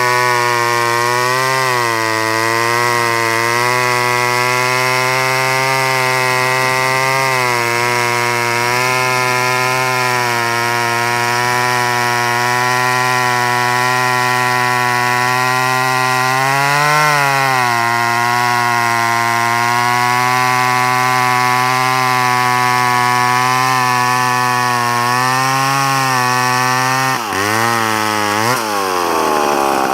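McCulloch Pro Mac 10-10 two-stroke chainsaw running steadily, its pitch wavering. The pitch dips about seventeen seconds in and twice more near the end, then climbs back up.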